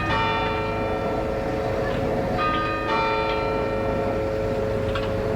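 Bells ringing: struck at the start and again twice about two and a half to three seconds in, each stroke leaving several long, slowly fading tones over a steady low hum.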